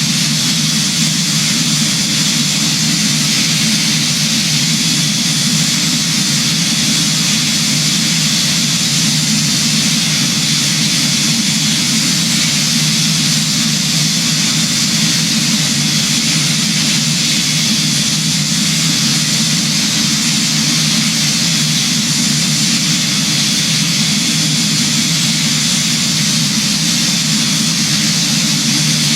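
Aircraft engines and rushing air during the approach to landing: a loud, steady rush with a low drone underneath, unchanging.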